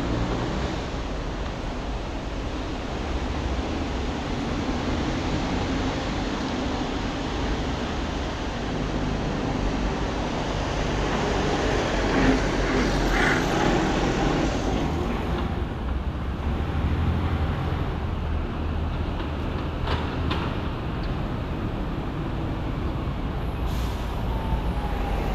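Steady motor-vehicle traffic noise, a low engine rumble with road noise, swelling louder for a couple of seconds about halfway through.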